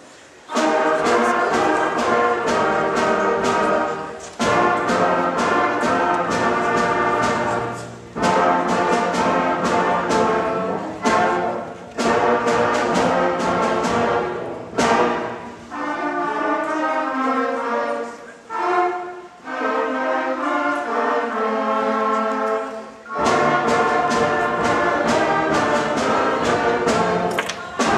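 Sixth-grade concert band playing, brass to the fore, in phrases broken by short pauses, with frequent sharp percussion strikes. The band comes in suddenly about half a second in.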